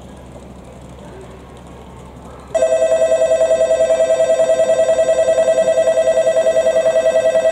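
Shinkansen platform warning bell switching on about two and a half seconds in: a loud electronic ring on two close notes, trilling rapidly and steadily. It warns that a train is about to pass through the station without stopping. Before it, only faint steady background noise.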